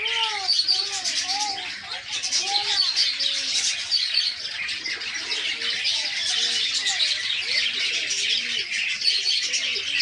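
A flock of caged budgerigars chattering and chirping continuously in a dense, high twittering, with lower rising-and-falling bird calls mixed in.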